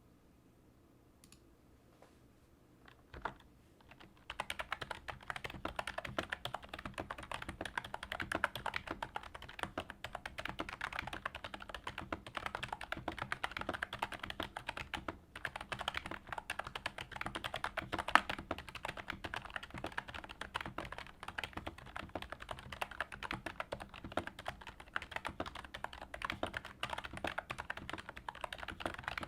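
Wolf Totem V5 membrane gaming keyboard, modded with PE foam under the rubber domes and Tribosys 3204 lube on the domes and stabilizers, typed on fast. A few stray taps, then dense, rapid keystrokes from about four seconds in, with a brief pause midway and one louder key hit a little after.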